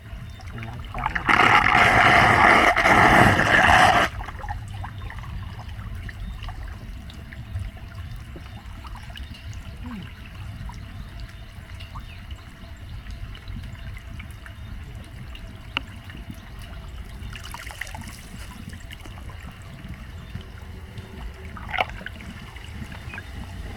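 Floodwater running into a street drain. About a second in there is a louder rush of water lasting some three seconds, then a fainter steady trickle.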